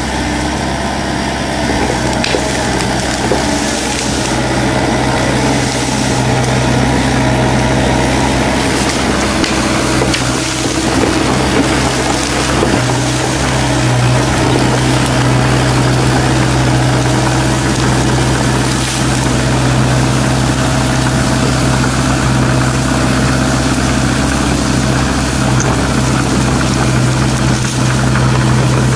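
Kubota U-45 mini excavator's diesel engine running steadily as the machine works, with no break in its hum.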